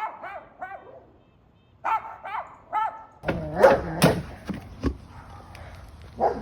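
A dog making short high yips in quick runs of three, then louder, deeper barks from about halfway through.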